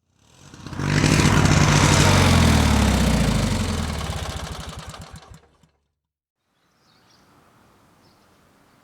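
Motorcycle engine running: it swells up over the first second, then its note falls steadily in pitch and fades out over about four seconds. Near silence follows, then faint hiss.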